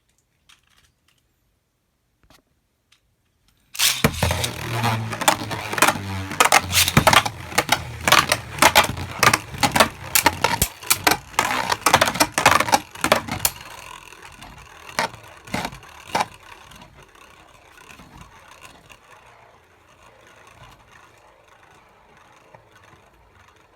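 Two Beyblade spinning tops launched into a plastic stadium about four seconds in, clashing in a rapid run of sharp hits. After about ten seconds the hits thin out into quieter scraping and rattling that fades toward the end.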